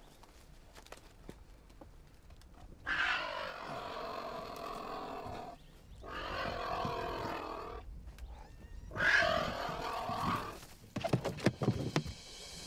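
Cheetah cub growling and hissing defensively while being caught by the tail: three long, rough growls of about two seconds each. A few short knocks follow near the end.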